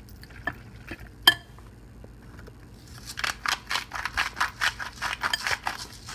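Spoon mixing salmon salad in a ceramic mixing bowl: a few clicks with one sharp knock about a second in, then a quick run of scraping stirring strokes, about five a second, from halfway through.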